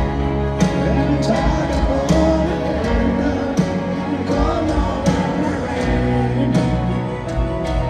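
Live rock band playing a piano ballad: a male lead vocal sings over piano, bass and drums, with a steady slow beat.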